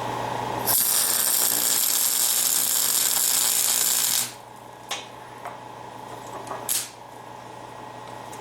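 Electric welding arc tack welding two steel blocks together: a loud, steady hiss for about three and a half seconds, starting under a second in. Then a few light clicks and a brief second hiss near the end.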